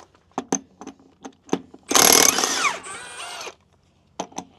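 Impact wrench run in a short burst of about a second and a half, its pitch sliding as it spins, between scattered sharp metallic clicks of tools and parts being handled.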